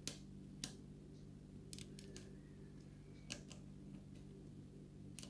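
Faint, sharp clicks of a homemade lock pick working the pins of a pin-tumbler challenge lock under pin-side tension, about six or seven clicks spread unevenly over the few seconds as pins are lifted and set. A low steady hum runs underneath.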